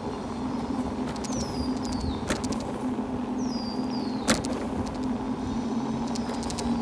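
Riding noise from a moving e-bike: steady road and wind rush under a steady low hum, with two sharp knocks about two and four seconds in. Short high falling chirps come in pairs about a second in and again past three seconds.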